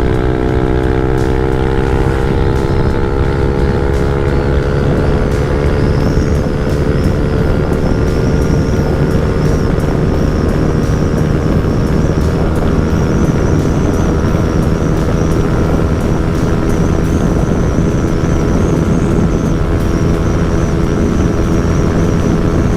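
Yamaha NMAX 155 single-cylinder scooter engine through an open JVT V3 aftermarket exhaust, pulling at full throttle on a top-speed run. The engine note climbs over the first several seconds, then holds almost steady as the CVT keeps the revs up, with a heavy rush of wind over it.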